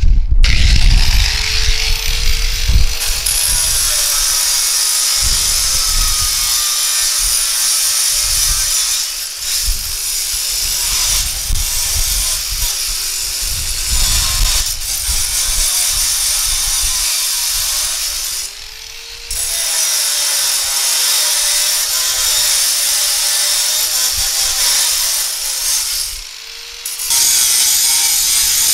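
Corded angle grinder cutting through the welded steel rods of a cattle panel: a loud, steady, high-pitched grinding over the motor's whine. The grinder stops briefly twice, about two-thirds of the way in and near the end, and spins back up each time as it moves between wires.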